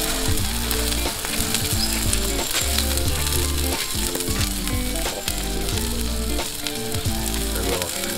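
Skewered meat sizzling over a charcoal grill, a constant fine crackle of fat spitting on the coals. Background music with a stepping bass line plays underneath.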